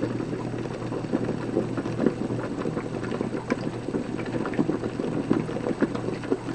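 Pots bubbling on the stove: a milk-and-cream mixture being heated to curdle into ricotta, with pork boiling alongside, a steady crackling simmer full of small pops.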